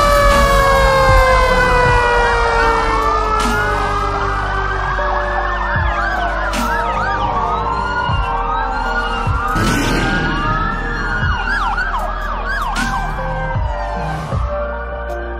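Several emergency-vehicle sirens wailing at once, their pitches rising and falling over one another. In the first few seconds one long tone slides slowly down in pitch. A few sharp clicks are scattered through it.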